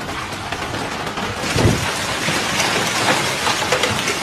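Hailstorm: hail and heavy rain pelting hard surfaces in a dense clatter of small impacts, growing louder about a second and a half in, with a short low thump as it does.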